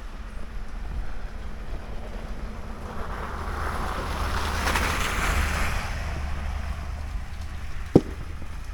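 Wind buffeting the microphone with a steady low rumble, while a broad rushing noise swells up in the middle and fades away. A single sharp click sounds near the end.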